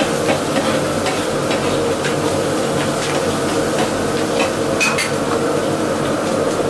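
Guozi bing flatbreads frying in an old, thickly seasoned iron pan: a steady sizzle with frequent light clicks and scrapes against the pan, one sharper click about five seconds in.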